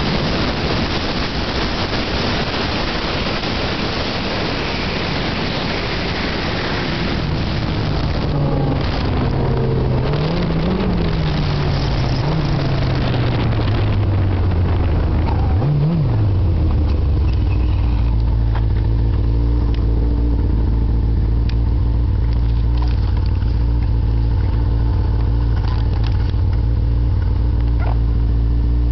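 Yamaha RX-1 snowmobile's four-stroke four-cylinder engine running at speed under a rush of noise, then winding down as the sled slows. About halfway through it gives one quick rev, then settles into a steady idle.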